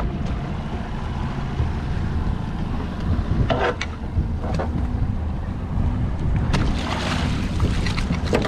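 Boat's outboard motor running steadily at low speed, with a few short knocks and clatters on the boat partway through.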